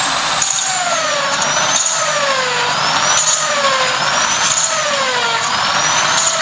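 Variable-speed electric drill running slowly, its motor whine rising and falling about every second and a half over a hissing grind. It is spinning a valve against its seat in a Volkswagen cylinder head to lap it in with grinding paste.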